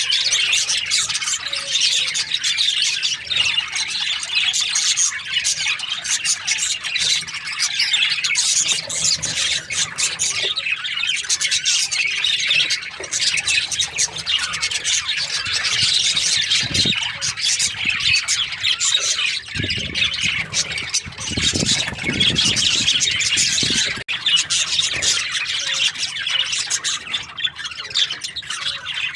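A colony of budgerigars chattering without a break, a dense mix of high chirps, warbles and squawks.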